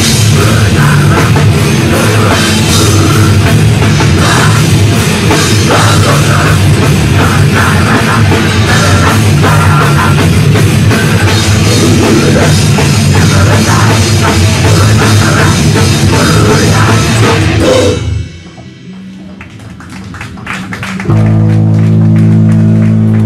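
Heavy metal band playing live at full volume: distorted electric guitars, bass and drum kit. The music cuts out suddenly about eighteen seconds in, and after a short quieter gap a single low note is held steadily to the end.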